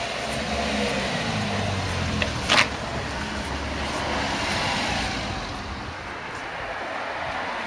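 Road traffic: a car engine passing, its pitch falling over the first few seconds, with a brief sharp clack about two and a half seconds in.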